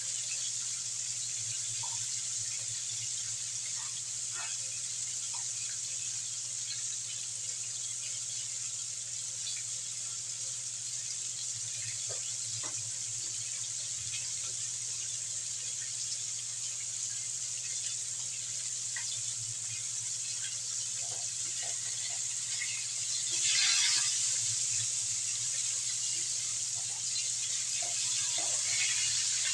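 Battered chicken pieces deep-frying in hot oil in a wok: a steady sizzle with scattered small pops. The sizzle swells sharply for a moment about 23 seconds in. Near the end a turner stirs the pieces.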